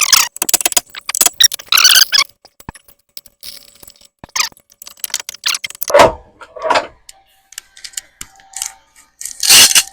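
Metal clattering, scraping and rattling as tools and parts are handled, with a dense run of scraping clicks at the start, two heavier knocks partway through and a loud knock near the end.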